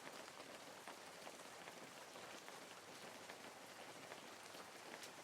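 Near silence: a faint, steady hiss speckled with light crackling, like soft rain ambience.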